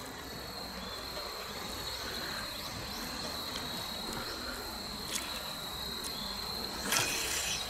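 Steady high-pitched insect song, a single held tone like a cricket or cicada, over a low background hiss. A short burst of noise comes about seven seconds in.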